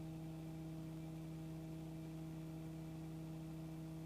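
Faint steady electrical hum of several fixed tones on a helicopter intercom and radio audio feed, with the line quiet between transmissions. The engine run-up is not heard.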